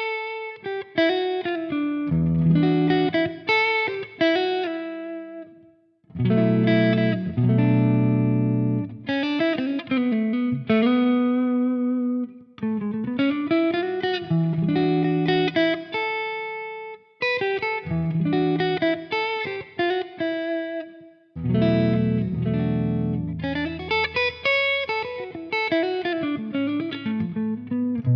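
Epiphone 1959 ES-355 semi-hollow electric guitar with Gibson CustomBucker humbucking pickups, played through an amplifier in a sound test. It mixes chords and single-note lead lines with string bends, in phrases separated by short pauses.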